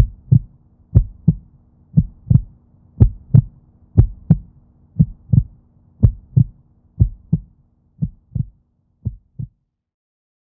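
Heartbeat sound effect: paired low 'lub-dub' thumps at about one beat a second, over a faint steady hum. The beats fade and stop about nine and a half seconds in.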